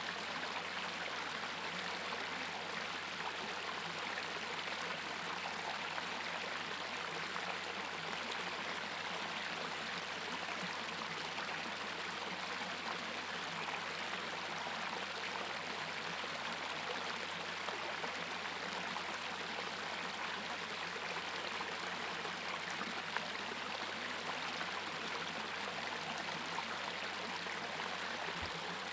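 A small stream cascade splashing steadily as it spills over rocks, a continuous even rush of water.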